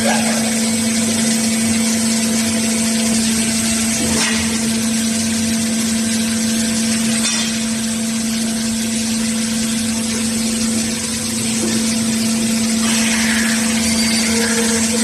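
Underground mining drill rig running: a loud, steady machine hum under a dense rushing noise, with brief knocks about four and seven seconds in.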